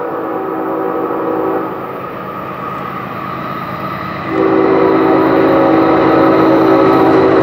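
Union Pacific diesel freight locomotive's air horn sounding as the train approaches: one blast fades out about a second and a half in, then a long, louder blast starts just after four seconds and holds, over the steady rumble of the oncoming train.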